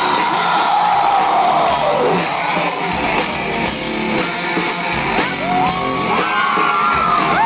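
Live rock band playing loud, heard from in the crowd, with held, gliding notes rising above the band in the last few seconds.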